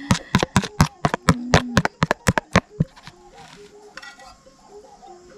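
Metal spoon beating egg yolks in a plastic basin: quick clinking strokes against the bowl, about five a second, that stop just under three seconds in.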